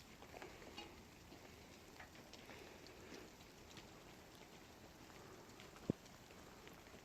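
Near silence with a faint, scattered patter of sleet, and one sharp click about six seconds in.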